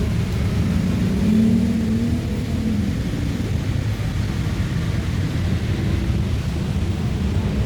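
Single-cylinder engine of a Kawasaki 250 cc dual-sport motorcycle running steadily, briefly a little higher in pitch about a second in.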